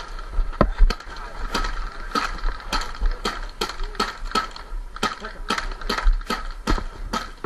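Paintball marker firing repeatedly, sharp pops at an uneven two to three shots a second.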